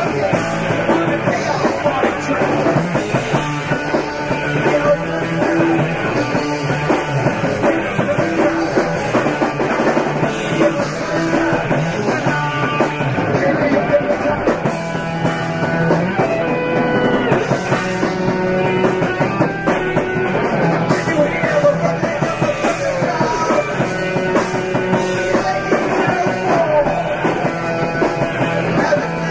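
Rock band playing with drum kit, electric guitar and bass guitar: a lo-fi bedroom recording of an up-tempo punk/psychedelic rock song.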